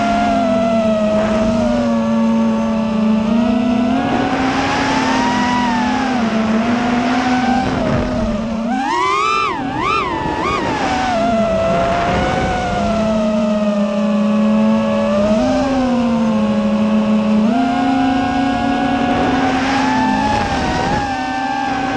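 Electric motors and propellers of a small camera drone whining in flight, the pitch mostly steady, with quick sharp swoops up and down about halfway through as the throttle is punched.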